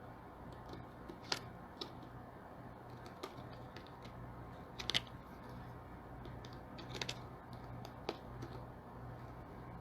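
Sporadic light clicks, one every second or two, over a low steady hum.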